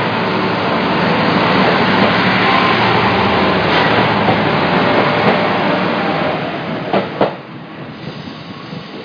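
KiHa 200 series diesel railcar running along the platform, a loud steady rumble with two sharp clacks about seven seconds in, after which the sound drops away.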